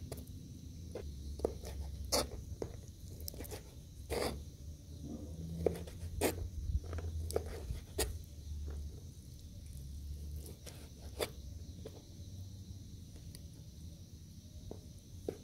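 A large kitchen knife cutting sheep liver into cubes, the blade knocking on a plastic cutting board in irregular strokes about every second or two.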